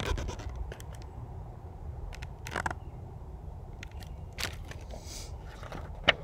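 Quiet outdoor background with a low steady rumble and scattered small clicks and rustles as a hardcover picture book is held and handled, ending in a sharper click about six seconds in as a page is turned.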